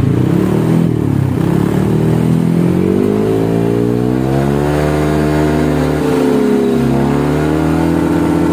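Yamaha Aerox 155 scooter's single-cylinder engine revved through its original ROB1 muffler, which has been rebuilt inside for a deeper, bassier note. The pitch climbs and dips several times as the throttle is opened and eased.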